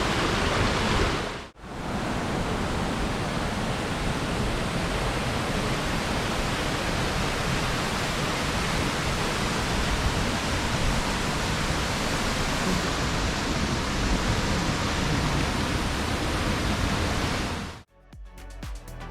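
Waterfall: a steady rush of falling water, with a brief dropout about a second and a half in. Near the end it cuts off and music begins.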